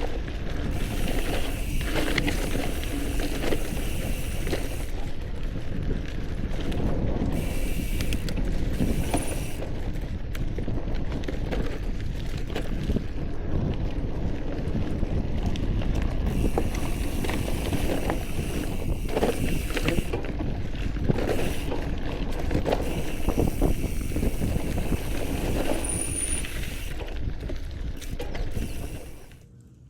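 All-City Gorilla Monsoon gravel bike, on 27.5 x 2.1 Teravail tyres, being ridden over dirt singletrack: a steady rumble of tyres on the trail mixed with rattles and clicks from the bike over bumps. The noise drops away suddenly near the end.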